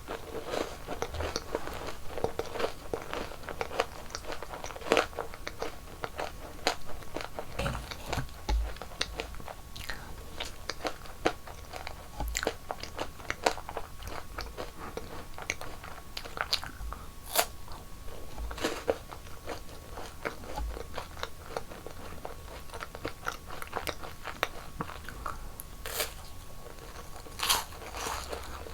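Close-miked eating: irregular crunchy bites and chewing of sweet snacks, with sharp crackly snaps scattered throughout.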